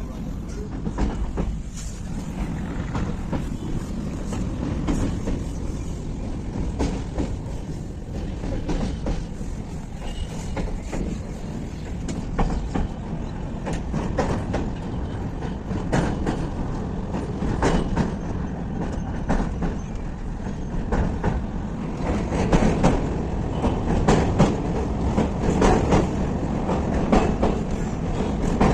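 Passenger train running along the track, heard from inside a coach: a steady low rumble with the wheels clicking and clacking over the rail joints, growing louder over the last few seconds.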